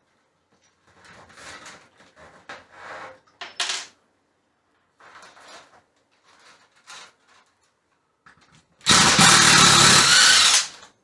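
Power drill backing out the screws that hold an old fluorescent ceiling fixture. A loud, steady run of about two seconds comes near the end, after a few faint knocks and rattles of handling.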